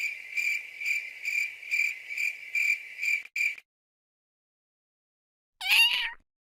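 A steady, high-pitched, cricket-like trill pulses about twice a second for three and a half seconds, then cuts off suddenly. After a silent gap, a single short cat meow sounds near the end.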